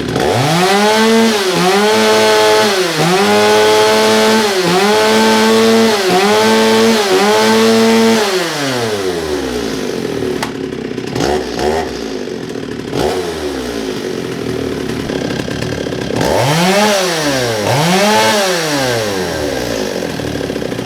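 Stihl 021 two-stroke chainsaw revved hard, held near full throttle in about five bursts with brief dips between them. About eight seconds in it drops back to idle, is blipped a few times, then revved twice more and left idling.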